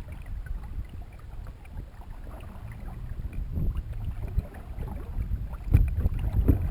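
Sounds from a canoe out on a lake: wind buffeting the microphone, water against the hull, and a few sharp knocks near the end.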